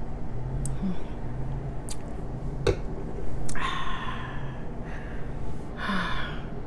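A woman drinking from a stemmed glass, with a few small clicks of sipping and swallowing, followed by two short breathy exhales.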